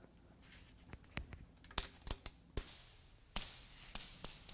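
Light metallic clicks and clinks, about seven spread over a few seconds, as a Jeep 4.0L inline-six block is rolled over on an engine stand, parts inside the worn-out engine shifting as it turns.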